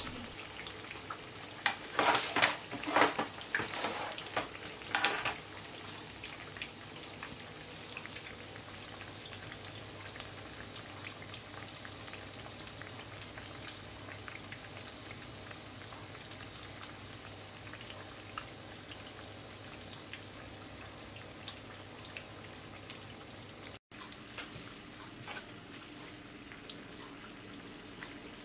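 Hot oil crackling around meat-filled börek turnovers deep-frying in a pan at medium heat: a steady patter of tiny pops and spits. A few louder bursts of noise come between about two and five seconds in.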